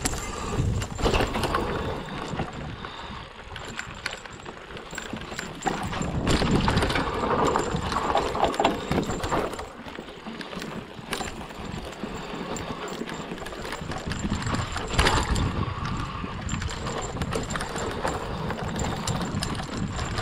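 Hardtail mountain bike riding down a dirt forest trail: tyres rolling over dirt and twigs, with the bike rattling and knocking over bumps and roots. The clatter is busiest from about six to nine seconds in, with one sharp knock about fifteen seconds in.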